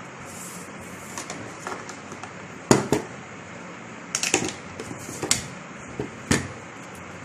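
Short knocks and clatters of objects handled on a tabletop as a plastic soda bottle is set down and a long metal hand pump is laid beside it. The loudest knock comes just under three seconds in, then a quick cluster a little past four seconds and two more near the end, over a steady background hiss.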